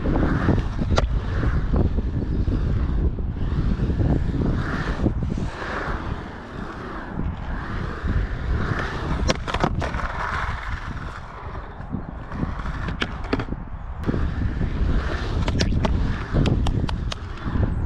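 Skateboard wheels rolling on a concrete bowl, the noise swelling and fading as the rider carves back and forth across the transitions. Several sharp clacks from the board and trucks come through, with a cluster of them near the end.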